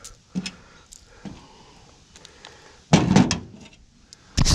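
A few light clicks, then a loud clunk about three seconds in and a quick run of knocks and rattles near the end: scrap appliance parts being handled and worked on while the copper is cut out.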